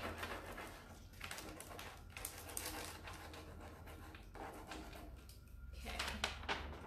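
Irregular dry scratching and papery rustling as a rub-on decor transfer sheet is rubbed down onto a rough, grooved wooden sign.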